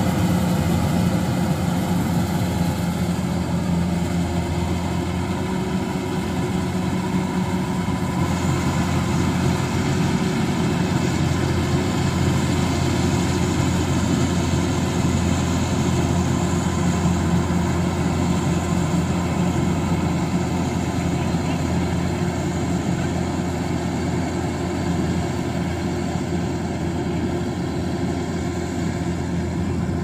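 Farm machine's engine, most likely a rice combine harvester's, running steadily at constant speed with an even hum.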